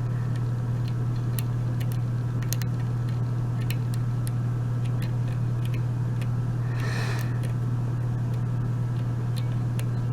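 Small scattered clicks and ticks of a lock pick and tension wrench working the pin stacks of a mortise lock cylinder, the pins still springy, over a steady low hum that is the loudest thing. A brief soft hiss comes about seven seconds in.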